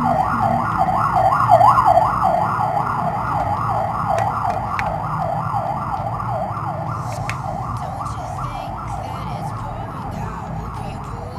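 Electronic yelp siren, its pitch sweeping rapidly up and down several times a second, starting suddenly and easing off slightly toward the end.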